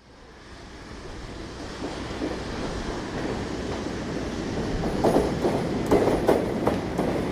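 Plastic toy bulldozer moving along, a rough rumbling clatter that grows steadily louder, with a few sharp clicks near the end.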